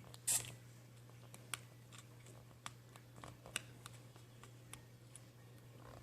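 Faint scattered clicks and taps of a laptop LCD panel and its display cable connector being handled and plugged in, with one sharper crackling click near the start, over a steady low hum.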